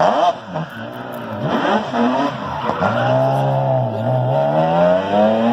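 Rally car engine revving hard on a tarmac stage, its pitch climbing and dropping several times through gear changes and lifts, then rising in one long pull over the last couple of seconds.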